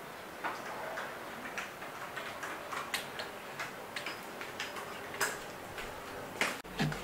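Light clicks and taps at an uneven pace, one or two a second, with a louder knock near the end.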